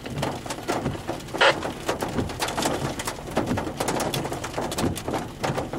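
Rain pattering on a car's windshield and roof from inside the vehicle, heard as many irregular sharp taps over a steady hiss.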